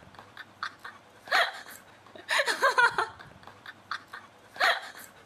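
Husky whining in three short vocal bursts: about a second in, around two and a half seconds in, and near the end.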